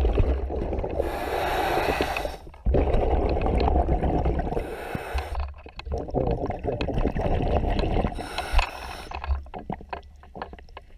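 A scuba diver breathing underwater through a regulator: three bursts of exhaled bubbles about three and a half seconds apart, over a low steady rumble. It grows quieter near the end.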